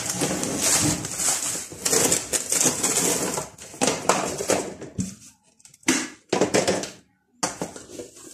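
Plastic food packets crinkling and rustling as they are handled and packed into a plastic basket, in irregular bursts that thin out after about five seconds.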